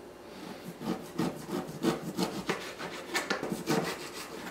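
Kitchen knife slicing through a chilled log of cookie dough and striking a plastic cutting board: about ten short cutting strokes at an uneven pace.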